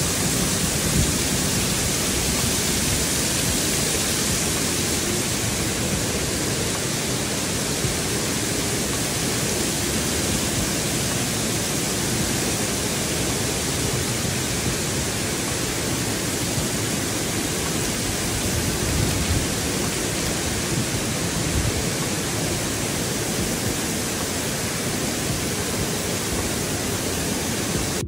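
Waterfall pouring close to the microphone: a steady, loud rush of falling water and spray, heard from a rock overhang behind the falling water.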